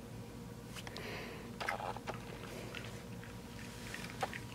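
Faint scattered clicks and a soft rustle from a small dog moving about in a plush costume on carpet, over a steady faint electrical hum.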